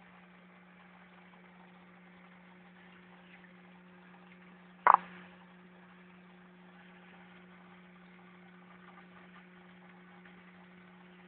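Steady low hum of aquarium equipment, with one sharp knock about five seconds in that is the loudest thing heard.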